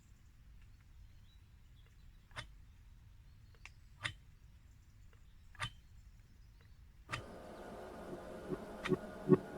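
Faint background with four separate sharp clicks, then electronic music with a beat coming in about seven seconds in and building.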